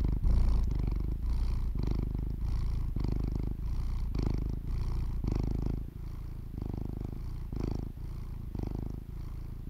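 A domestic cat purring, a steady low rumble that swells and eases in regular pulses with its breathing.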